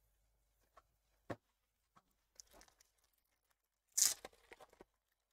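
A 2022 Topps Gypsy Queen hobby pack wrapper being torn open, a short ripping sound about four seconds in. Before it there is a single sharp click and some faint rustling.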